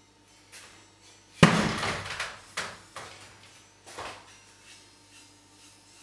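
A loud knock about a second and a half in, then a few softer clattering knocks and scrapes: a paintbrush working in a hand-held paint bowl.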